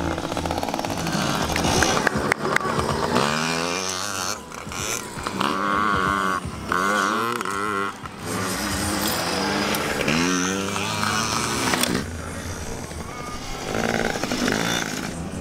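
Small two-stroke engines of Yamaha PW50 minibikes revving up and falling back again and again as the bikes race past, over background music.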